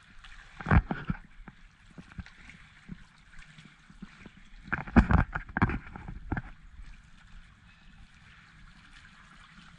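Pool water splashing and gurgling at the surface, in a few short loud bursts: one about a second in and a cluster around the middle, over a low steady wash of water.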